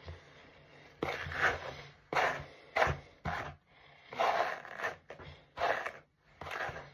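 Detangling hairbrush dragged through long hair: about seven separate scraping strokes of the bristles.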